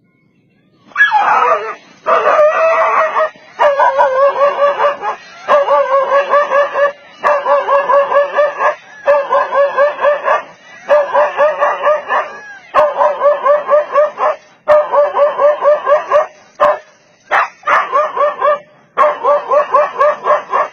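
A dog barking rapidly and repeatedly: high, quick barks at about six a second, in runs of one to two seconds broken by short pauses, starting about a second in.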